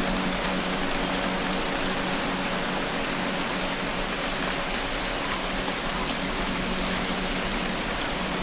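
Steady rain hiss with a low held drone underneath, and a few faint high bird chirps in the middle.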